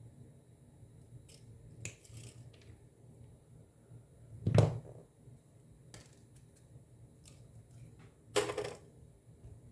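Small hand tools handled on a workbench: a click a little under two seconds in, a louder knock with a low thud midway, and a short scraping rasp near the end.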